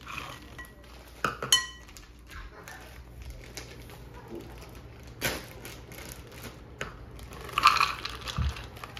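Kitchen clatter: a measuring cup and dishes knocking and clinking against a bowl as cups of pecans are measured out. The loudest bits are a clink that rings briefly about a second and a half in and a burst of clatter near the end.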